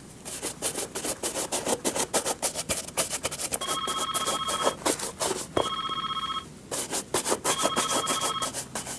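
Fast, repeated rubbing strokes on a leather shoe as it is polished by hand. A telephone rings three times over them, each ring about a second long, the first a little past a third of the way in.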